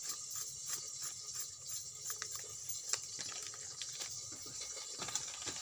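Faint, scattered light clicks and taps over a steady low hiss: red chili powder being shaken from its container into a steel bowl of gram flour.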